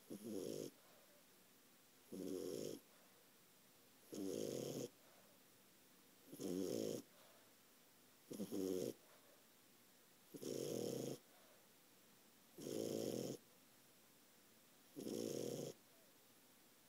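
French bulldog puppy snoring in its sleep: a steady rhythm of about one snore every two seconds, eight in all, each short and rattling.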